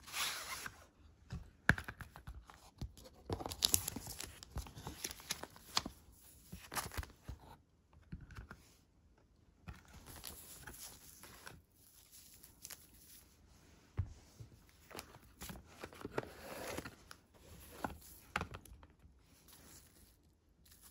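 Handling of a tempered-glass screen protector and its plastic packaging: irregular rustling, tearing and crinkling of film, with small clicks and taps.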